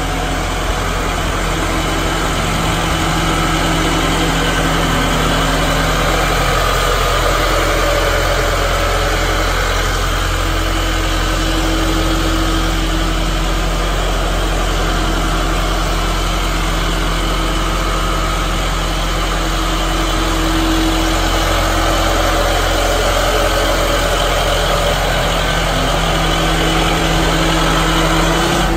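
An amusement park train locomotive's engine idling steadily.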